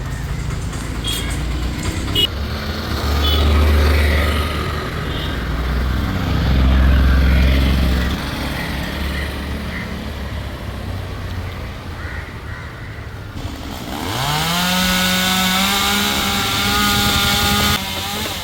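Chainsaw engine revving from a low rumble up to full throttle about fourteen seconds in, holding a steady high whine for about three seconds, then letting off near the end.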